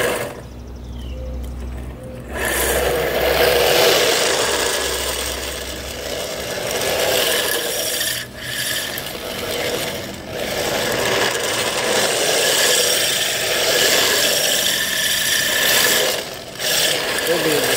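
3Racing RC drift car's hard plastic tyres sliding and scraping over coarse asphalt, a continuous rasp that swells and fades as the car turns, with a few brief drops.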